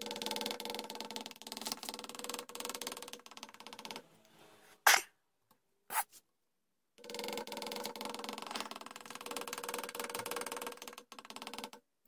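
A hand carving gouge shaving wood from a wooden gunstock in two slow, scraping cuts, with a sharp tap of the tool between them.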